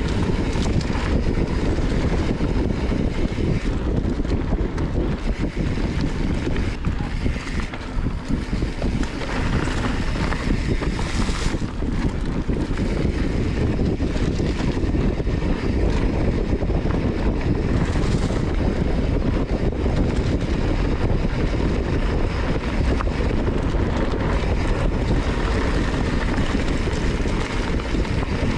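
Wind buffeting an action-camera microphone and mountain-bike tyres rumbling over dry, loose dirt on a trail descent, with frequent small knocks and rattles from the bike.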